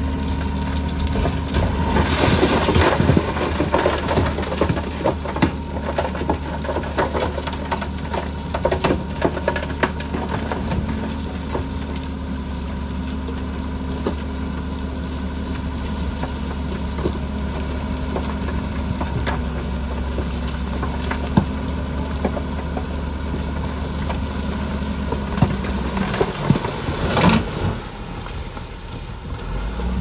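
Heavy diesel earthmoving machine running steadily, with repeated clanks and knocks as it works dirt. The low engine note drops away about four seconds before the end, around a louder crunching clatter.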